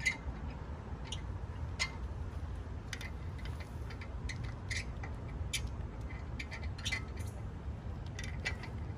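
Light metallic clicks and clinks at irregular intervals over a steady low rumble: wheel bolts and hand tools being handled while a car wheel is bolted back on.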